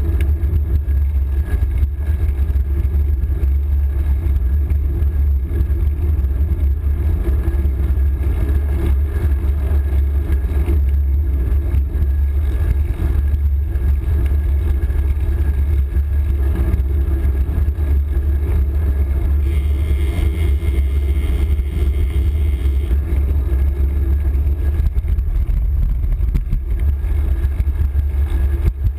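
Wind rumbling steadily on the microphone of a camera carried on a moving bicycle. A faint higher hiss joins for a few seconds past the middle.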